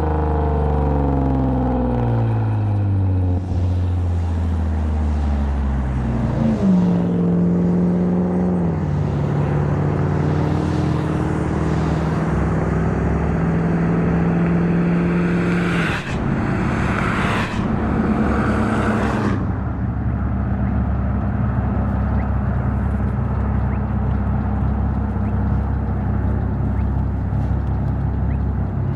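2010 Lexus IS250 AWD's V6 heard through its aftermarket exhaust with valved mufflers while driving. The revs fall as the car slows, jump up sharply about six seconds in, then fall slowly again. Three short rushing noises come just past the middle, and the engine settles into a steady drone for the last third.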